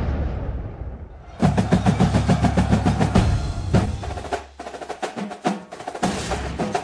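Background music driven by drums and percussion: a fading wash gives way about a second and a half in to a fast, dense drum pattern, which thins briefly past the middle and then picks up again.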